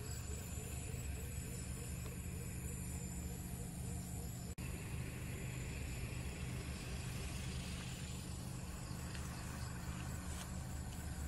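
Steady low outdoor rumble, with a faint rhythmic chirping of about three calls a second that fades out a few seconds in. The sound cuts out for an instant a little before halfway.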